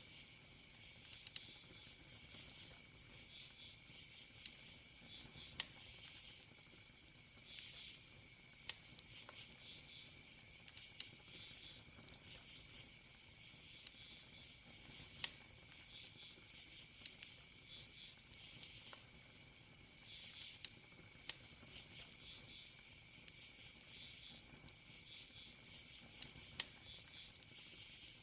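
Burning wood in a campfire crackling, with scattered sharp pops, over crickets chirping in a steady high trill.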